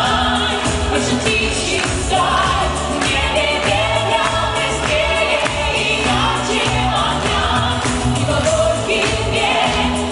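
A pop vocal trio, a man and two women, singing together into microphones over a pop accompaniment with a steady beat.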